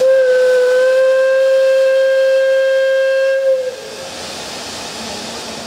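Steam crane's whistle blowing one steady note for nearly four seconds, the warning that a lift is about to start, then cutting off sharply, leaving the hiss of escaping steam.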